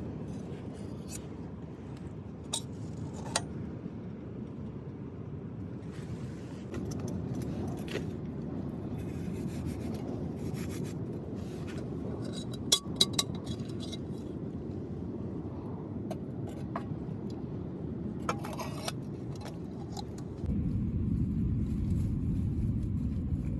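Strong wind rumbling on the microphone, with scattered small clicks and clinks throughout. The wind gets louder about twenty seconds in.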